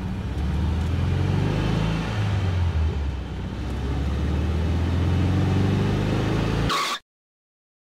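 Motor vehicle engine running as a sound effect, low and steady, easing off about three seconds in and building again, then cutting off suddenly just before the end after a brief higher-pitched sound.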